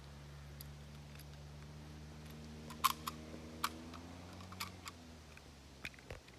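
Straight-pull bolt of a 1889 Schmidt-Rubin rifle being worked: a few sharp metallic clicks, the loudest two less than a second apart near the middle. Under them a faint low hum fades out about five seconds in.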